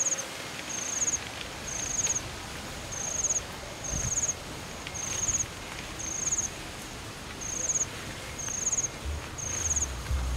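An insect chirping steadily, a short high pulsed chirp repeating about three times every two seconds. Soft rustling of tent fabric being handled underneath, and a low rumble sets in near the end.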